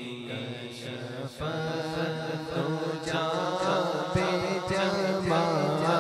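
A man reciting a naat in a drawn-out, ornamented singing voice over a steady hummed vocal drone. The voice comes in stronger about a second and a half in, and a few soft low thumps fall in the second half.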